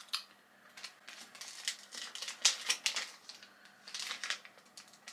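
Under-eye mask packaging being opened and handled: a run of short crinkles and clicks.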